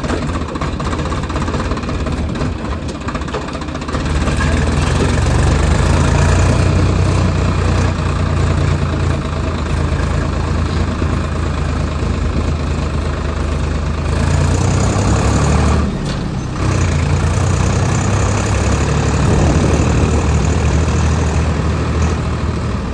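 Tractor engine running steadily, getting louder about four seconds in and dipping briefly about two-thirds of the way through.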